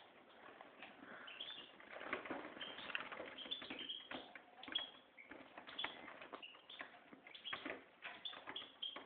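Goldfinch × canary mule singing a fast twittering song of short chirps, clicks and brief whistled notes, busier from about two seconds in.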